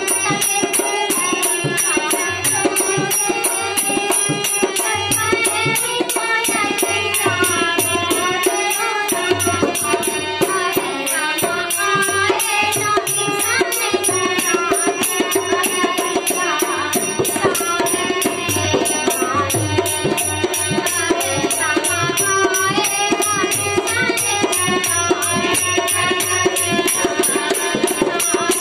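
A woman singing a Sawan folk song to her own harmonium accompaniment, the harmonium holding steady reedy chords under the melody, with a fast rattling percussion beat keeping time.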